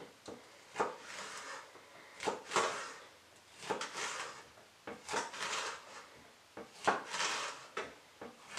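Chef's knife slicing a bell pepper into thin slices on a wooden cutting board: about a dozen uneven strokes, each a crisp cut ending in a knock of the blade on the board.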